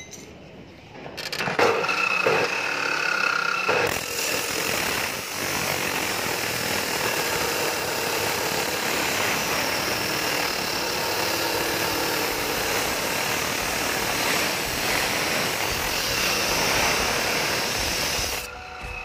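Abrasive chop saw (cut-off saw) starting up about a second and a half in, its motor whining for a couple of seconds, then its disc grinding steadily through the steel of a homemade gun clamped in the vise. The grinding stops shortly before the end.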